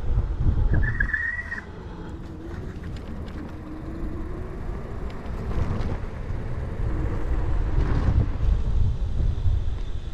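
Wind buffeting the microphone and road rumble from a Kaabo Mantis dual-motor electric scooter riding on pavement, with a faint whine that slowly rises and falls. A brief high squeal comes about a second in, after which the noise drops and then builds again.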